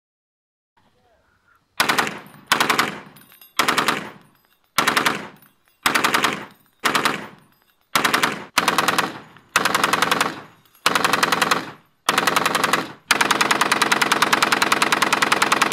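Belt-fed Browning M1919 machine gun in .308 firing about a dozen short bursts of rapid shots, each trailing off in echo, then one long unbroken burst over the last few seconds.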